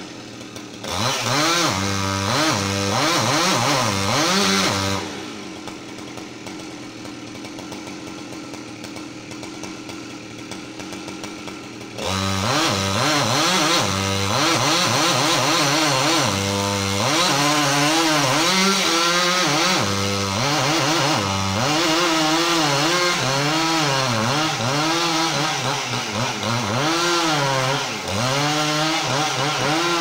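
Chainsaw cutting into a standing tree trunk, its engine revving up and down as the chain bites. After about five seconds it drops to a quieter idle, then comes back to full revs and keeps cutting, with the pitch wavering up and down.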